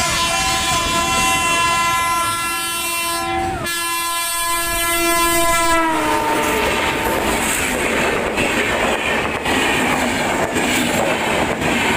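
Indian Railways electric locomotive sounding its horn, a long held note whose pitch drops about six seconds in as the engine passes close by. Then the passenger coaches rush past with wheels clattering over the rail joints.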